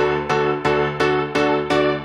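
Background music: evenly repeated pitched notes, struck about three times a second, each fading before the next.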